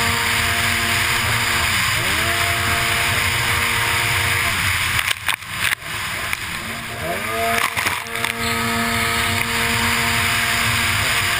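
Racing jet ski engine running hard under a rush of wind and water spray, its pitch dipping and climbing back twice. About five seconds in the engine note fades briefly among a few sharp knocks before the engine picks up again.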